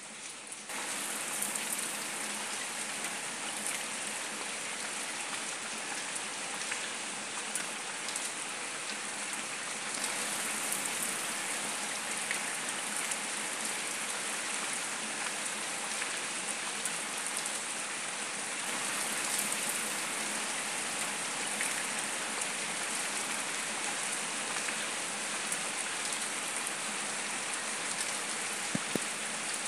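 Steady rain falling on wet paving stones and leaves, with scattered louder drops ticking; it steps up in level about a second in.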